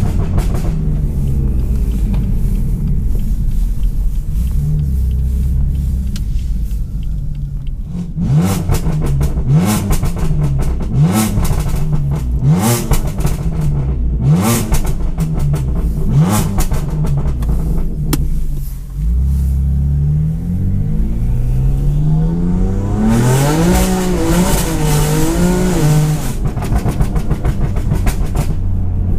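BMW M4's twin-turbo inline-six through an Armytrix exhaust, accelerating hard through the gears. From about 8 seconds in, its note climbs five or six times in quick succession, and each climb is cut by a shift with a sharp crack. Later the revs rise and fall again.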